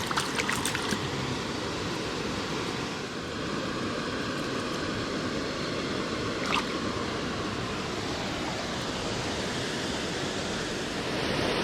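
Steady rush of stream water tumbling over falls and riffles. A few light clicks come in the first second, and one more about halfway through.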